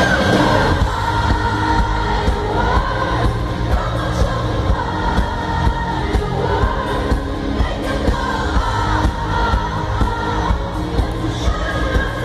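Live pop song at an arena concert: a woman singing lead over the band's steady beat, with the crowd singing along.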